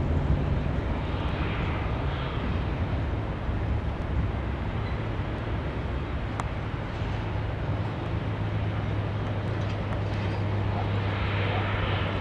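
Distant Airbus A380-842's four Rolls-Royce Trent 972 jet engines running with a steady low rumble; a deep drone grows stronger about eight seconds in as the airliner starts its takeoff roll.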